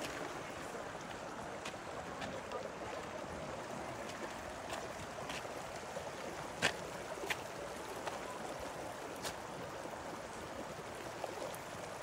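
Steady rushing of a nearby stream, with a few short sharp clicks scattered through it, the loudest about two-thirds of the way in.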